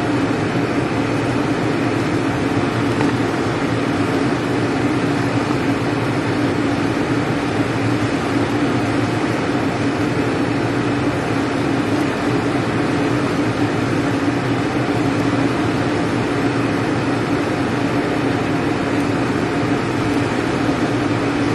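A steady mechanical hum with an even whoosh, unchanging throughout.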